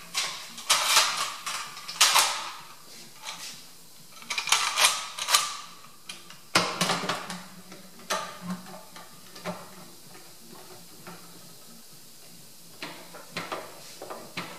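Parallel bar clamps being adjusted and tightened around a glued cabinet: metal clamp parts clicking, rattling and scraping on their bars in several irregular bursts, most of them in the first half, with a few lighter rattles near the end.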